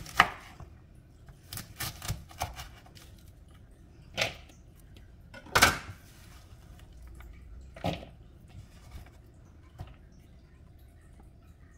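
A kitchen knife knocking on a wooden cutting board as julienned carrot is cut: a quick cluster of sharp knocks near the start, then single spaced knocks, the loudest about halfway through.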